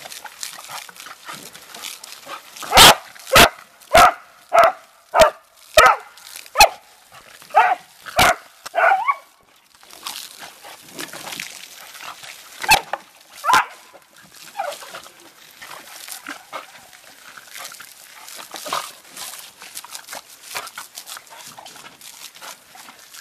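Small dachshund–beagle mix dogs barking while they play in the spray of a garden hose. About three seconds in comes a quick run of sharp barks, roughly two a second for about six seconds. Two more barks follow a few seconds later.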